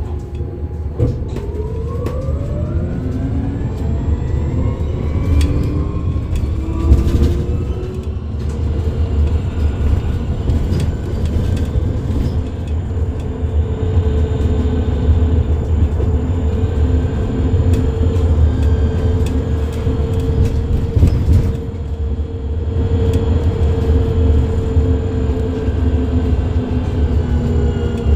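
Volvo 7900 Electric bus's electric drive motor whining over a low road rumble. The whine drops in pitch to a low about a second in, rises as the bus speeds up, then holds steady at cruising speed for a long stretch, and begins to fall again near the end as it slows.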